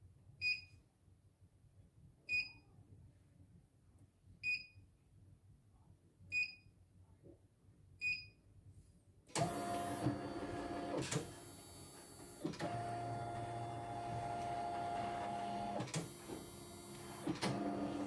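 A CNY computerised embroidery machine beeps briefly about every two seconds. About nine seconds in, its embroidery unit starts up with a steady motor whir as it drives the hoop around to a new position.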